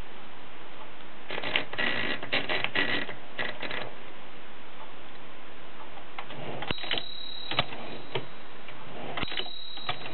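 Voss manual typewriter keys clacking: a quick run of keystrokes in the first half, then a few scattered single strikes.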